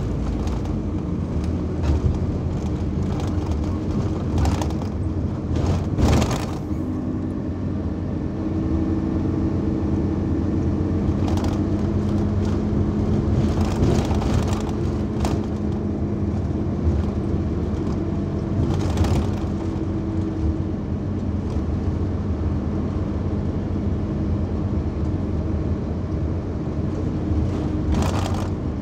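Scania OmniCity single-deck bus heard from inside the passenger cabin while under way: steady low engine and drivetrain hum with several held tones, and a few short sharp rattles or knocks from the cabin fittings.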